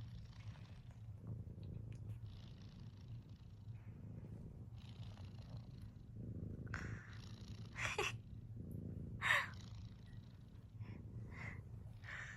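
A sleeping cat snoring: a steady low rumble with slow breaths about every two seconds. Two short, sharp sounds stand out, about eight and nine seconds in, and they are the loudest.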